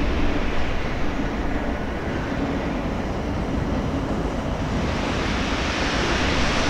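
Southern Railway Merchant Navy class 4-6-2 steam locomotive 35028 Clan Line running light engine at low speed: a steady low rumble with a hiss of steam that grows louder about five seconds in.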